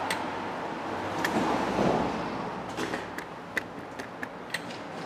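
A few light clicks and taps, with a brief swell of shuffling noise about two seconds in: handling noise as the camera is carried around the raised tailgate.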